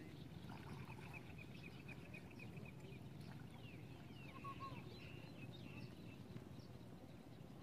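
Faint birds calling. A quick run of high chirps, about five a second, lasts a couple of seconds. A few falling whistles and short lower calls follow, over a steady low background rumble.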